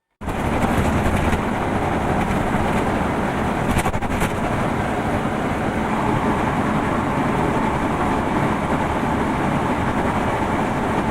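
New York subway train running, a loud, steady rumble and rail noise that begins abruptly just after the start, with a few brief clicks about four seconds in.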